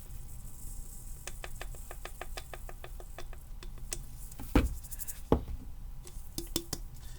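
An ornament being shaken to spread the alcohol ink and glitter inside: a run of quick rattling clicks, about five a second, then two sharp knocks and a few more clicks near the end.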